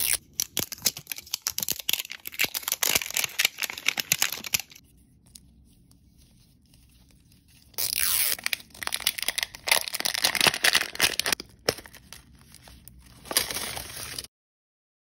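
Printed plastic film wrapping on an L.O.L. Surprise ball being picked at and peeled off, crinkling and tearing in close bursts. There is a quiet pause of about three seconds in the middle, and the sound cuts off suddenly near the end.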